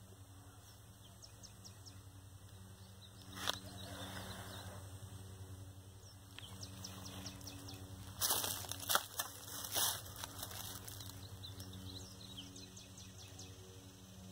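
Small twig-bundle fire crackling faintly with scattered ticks, with a sharp snap about three and a half seconds in and a cluster of louder crackles and rustles of dry twigs and leaves about eight to ten seconds in.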